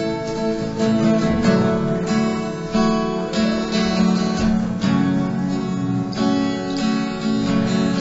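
Background music: acoustic guitar strummed and plucked in a steady, repeating rhythm.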